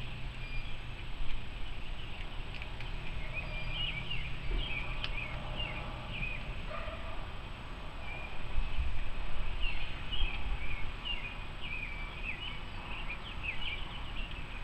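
Small birds chirping and twittering over and over, in short quick calls. A low hum runs under the first half, and a low rumble swells about eight seconds in and fades a few seconds later.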